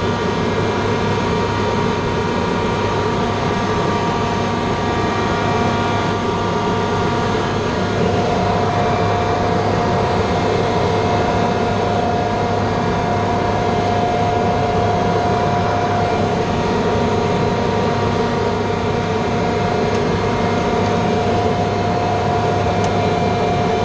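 Steady drone of running machinery with several steady whining tones on top; one mid-pitched tone grows stronger about eight seconds in.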